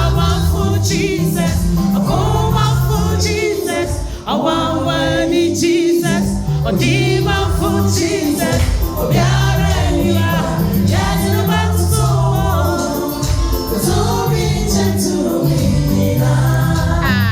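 Gospel music: voices singing together like a choir over a band with a steady bass line.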